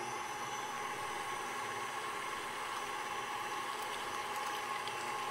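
Electric mixer running steadily at speed with a constant motor whine, its beaters whipping very cold whipping cream into softened cream cheese for a filling that is starting to firm up.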